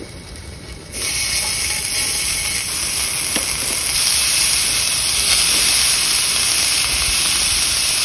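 Beef-wrapped dureup rolls sizzling and frying on a hot griddle pan, the sizzle jumping louder about a second in as the meat goes onto the pan and then hissing steadily.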